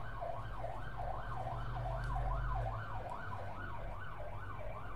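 Emergency vehicle siren passing in the street below, wailing rapidly up and down about twice a second, with a low vehicle rumble that swells about two seconds in.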